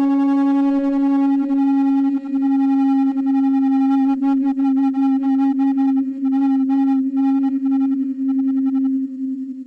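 Flute holding one long, low, steady note. The upper tones waver from about four seconds in, and the note tapers away near the end.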